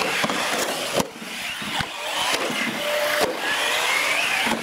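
Radio-controlled trucks racing on a concrete floor: the high whine of their motors rising and falling over tyre noise, with a few sharp knocks about one and three seconds in.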